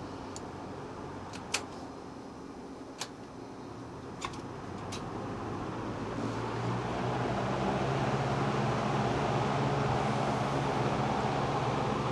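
Vintage electric box fan running on low, with a few sharp clicks in the first five seconds; from about six seconds a fan motor spins up and the blade noise grows louder, with a low hum, levelling off about two seconds later.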